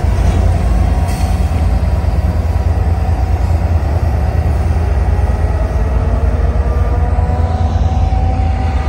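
Union Pacific diesel freight locomotives running as they pass close by, followed by an autorack car rolling past. A steady heavy rumble, with a faint drawn-out whine that drifts slowly in pitch.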